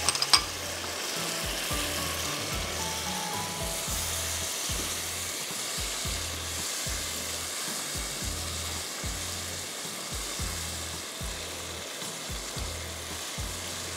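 Cubed onion, capsicum and green chillies sizzling in a tomato-cream masala in a wok, stirred with a spatula, over background music with a steady low beat.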